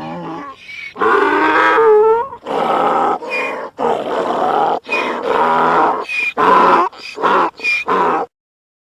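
Donkey braying: a softer opening, then a long loud call followed by a run of quick back-and-forth hee-haw calls that grow shorter before stopping about eight seconds in.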